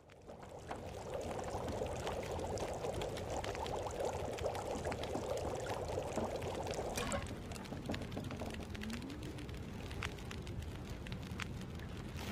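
A pot of rabbit stew bubbling as it cooks: a dense bubbling and popping that thins out about seven seconds in, leaving scattered pops.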